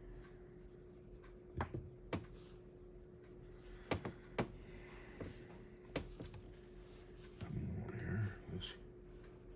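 Small sharp clicks and taps of tiny chassis parts being handled and fitted during HO slot car reassembly, over a steady hum. Near the end a longer rustling creak of about a second, which is an old desk creaking.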